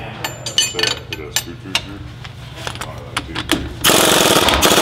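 Scattered metal clicks of hand tools on the Sprinter's front suspension, then about four seconds in an impact wrench starts hammering loudly in a rapid rattle, breaking loose the nut on a strut-to-knuckle bolt while a combination wrench holds the bolt head.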